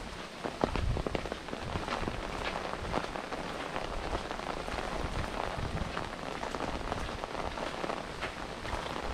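Steady rain falling, with many separate drops pattering close by.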